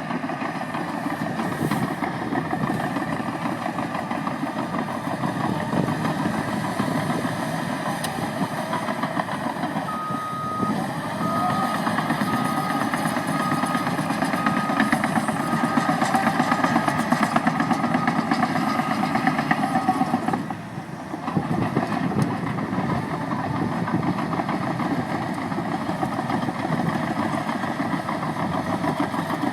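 Caterpillar 963D track loader's diesel engine running under work. Its reversing alarm beeps about eight times, roughly two beeps a second, about a third of the way in, and the engine noise briefly drops off about two-thirds of the way in.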